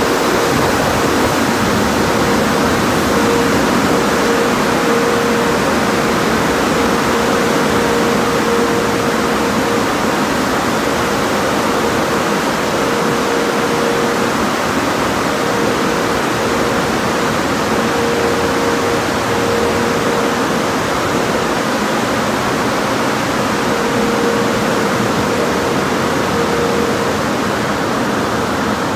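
Automatic tunnel car wash running: a loud, steady rushing noise, with a steady hum that fades in and out.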